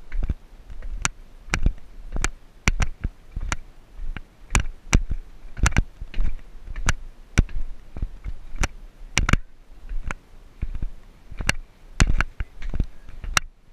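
Footsteps climbing stone stairs: short, sharp knocks and clicks in a steady walking rhythm of about two a second.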